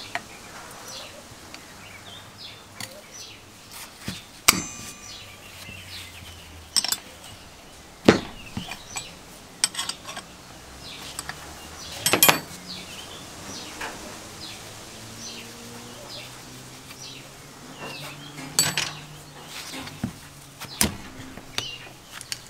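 Locking pliers working on the rusty steel pedal crossbar and nut of a vintage foot tyre pump: scattered sharp metallic clanks and clicks, the loudest about 8 and 12 seconds in.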